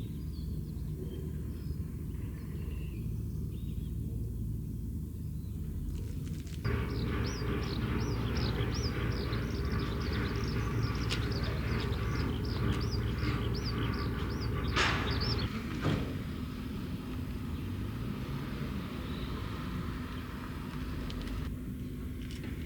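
Outdoor ambience over a steady low rumble. In the middle stretch a series of short high chirps repeats about twice a second, ending with a couple of sharp sounds.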